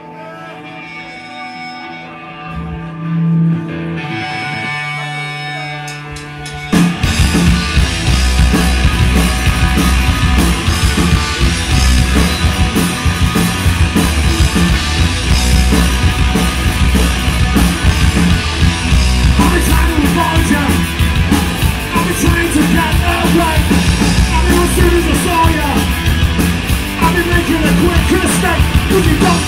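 Live punk rock band starting a song. A few seconds of held, ringing notes, then the full band comes in with drums and guitars about seven seconds in and plays on loudly.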